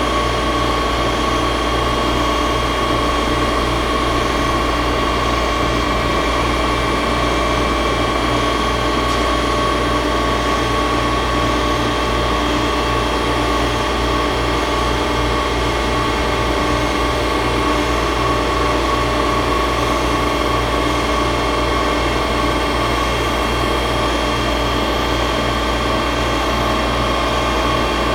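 5-axis CNC milling machine running steadily: a constant whine over a low hum, with no change throughout.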